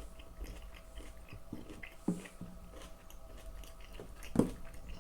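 A person chewing food close to the microphone: soft, irregular wet mouth clicks, with one louder short sound about four seconds in.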